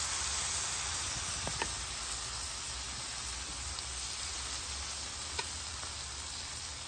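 Corn tortillas dipped in birria consommé sizzling on a hot flat top griddle: a steady hiss with a few faint pops.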